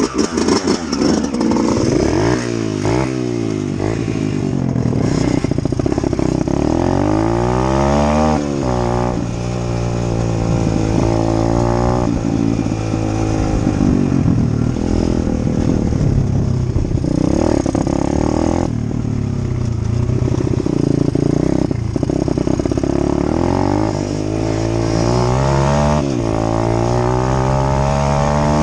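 Dirt bike engine revving up and dropping back repeatedly as it is ridden through the gears, with the pitch climbing several times and falling at each shift.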